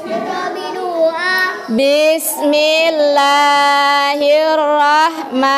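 A child's voice chanting in a drawn-out sung tone, softer at first, then holding long, steady notes from about two seconds in: a pupil leading the start of a recited prayer.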